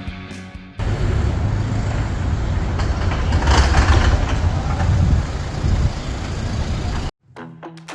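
Rumble of a large vehicle's engine, with a hiss that swells and fades about three seconds in; it cuts off suddenly near the end.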